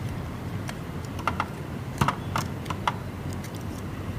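Small plastic clicks and taps as the black plastic housing and motor of a hot air blower are handled and worked apart, a scattering of light knocks mostly between one and three seconds in, over a low steady hum.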